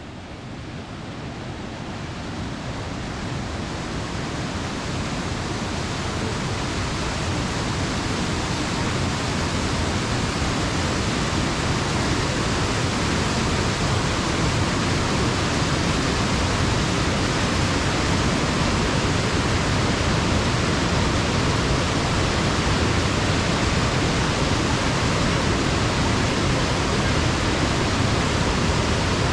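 Pistyll Rhaeadr, a tall single-drop waterfall, making a steady roar of falling water that swells up over the first ten seconds or so and then holds even.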